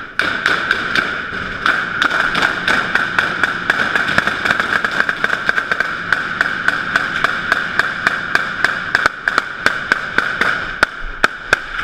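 Sustained, irregular crackle of gunfire, several sharp cracks a second, over a steady high-pitched tone.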